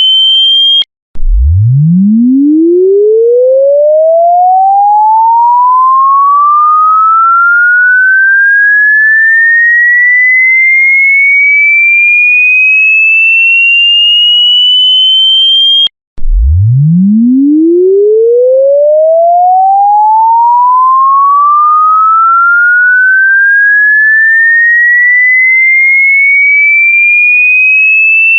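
A pure electronic sine tone sweeping steadily upward from a deep hum to a high whistle over about fifteen seconds. It cuts off abruptly and restarts from the bottom, about a second in and again about halfway through.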